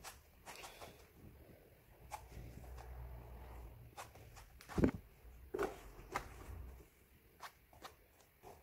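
A large fabric sheet being pulled and spread over a floor: rustling and soft bare footsteps, with a dull thump about five seconds in.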